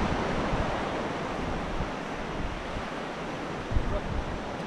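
Steady wash of surf on a beach, with wind rumbling on the microphone, in a stronger gust near the end.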